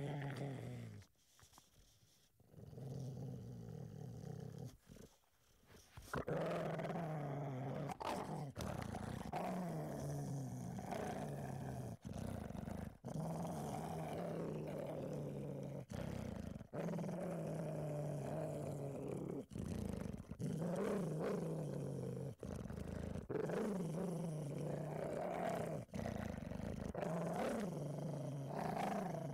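A dog growling in stretches of one to three seconds that rise and fall in pitch, separated by abrupt cuts.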